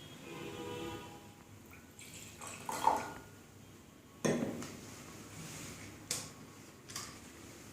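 Water poured into glassware, with a faint pitched filling sound in the first second. Then come four short, sharp knocks of glass vessels being set down and handled.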